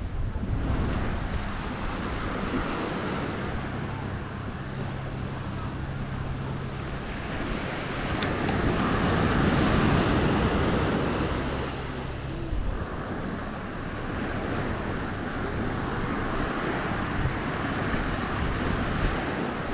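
Small waves breaking and washing up a sandy shore, with wind buffeting the microphone. The surf swells loudest about halfway through.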